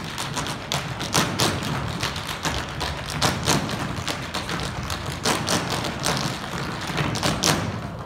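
A dance troupe's percussive footwork on a stage: stomps and taps, several sharp hits a second in an irregular rhythm, without music.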